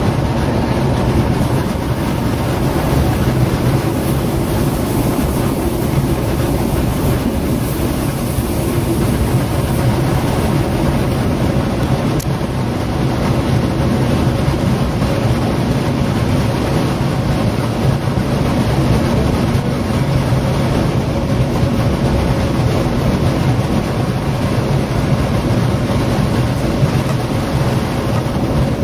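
DB Class 420 S-Bahn electric multiple unit heard from inside the passenger car while running at speed. There is a steady rumble of wheels on rail with an even hum from the drive.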